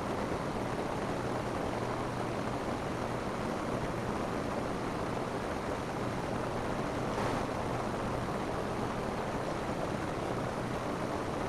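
Rain falling steadily on a roof, an even hiss of many drops, swelling slightly about seven seconds in.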